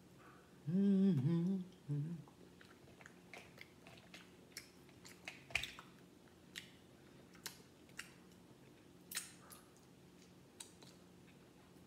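A woman hums briefly at the start, then a string of sharp crackling clicks: seafood-boil shells being cracked and peeled by hand, mixed with chewing.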